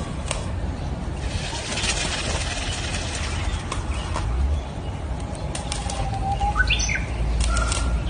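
A peacock's feathers rustling as it displays its fanned train, with scattered short clicks. A short bird call rising in pitch comes near the end.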